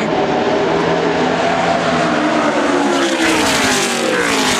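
NASCAR Nationwide Series stock cars' V8 engines running at speed on the track. The pitch rises, then drops as a car passes by near the end.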